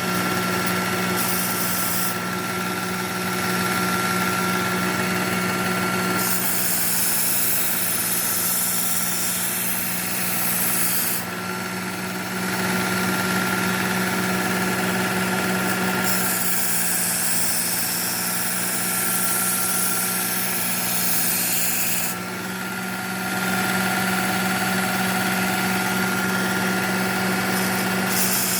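Work Sharp Ken Onion belt sharpener's motor running with a steady hum while a D2 steel knife blade is drawn along its coarse 120-grit belt. Each pass lasts about five seconds and adds a hissing grind over the motor, several times in a row, with the motor alone between passes.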